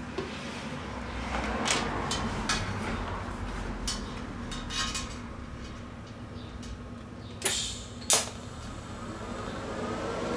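TIG welding steel on DC current with an HTP Invertig 221: a steady low hum, with scattered short clicks and taps and two sharper cracks about seven and a half and eight seconds in.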